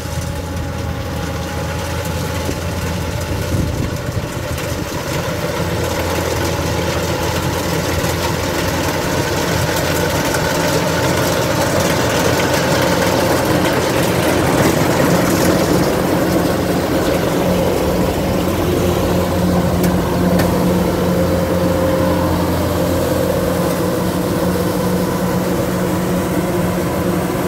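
Kubota DC-105X combine harvester running steadily while harvesting rice: a continuous engine and machinery hum, growing somewhat louder over the first several seconds.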